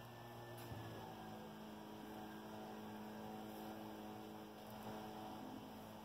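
A faint, steady low hum with a few soft scuffs of hands digging through garden soil.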